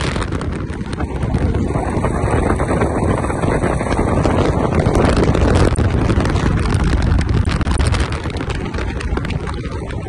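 Wind rushing over the phone's microphone from a moving car's open window, over steady road and engine noise. The noise is loud throughout and eases slightly near the end.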